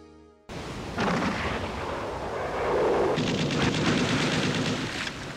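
Heavy gunfire and shell bursts: a dense, continuous rumble that starts abruptly about half a second in, with a rapid crackle of gunfire joining about three seconds in.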